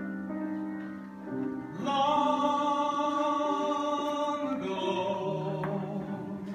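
Live song: sustained instrumental chords, then a singer comes in about two seconds in with long held notes over the accompaniment.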